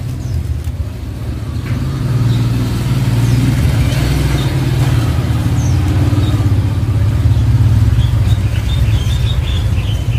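A motor vehicle's engine running close by: a steady low hum that grows louder about two seconds in and then holds.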